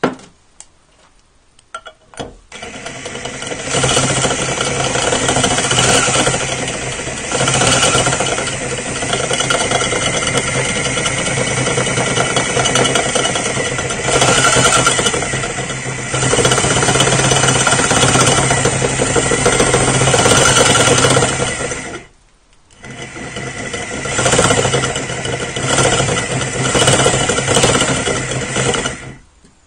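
Electric drill running a 14 mm masonry bit through a ceramic toilet-tank lid, with spray lubricant on the cut, to enlarge the hole. The drill starts about two seconds in, stops briefly about three-quarters of the way through, then runs again until just before the end.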